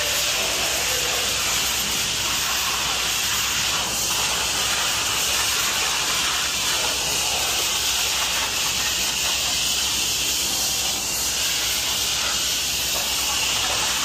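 Steady, even hiss of road and wind noise inside a moving semi truck's cab, with no distinct knocks or changes.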